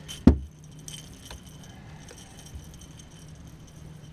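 A single heavy thump about a third of a second in, followed by faint light clicks and rattles over a low steady hum.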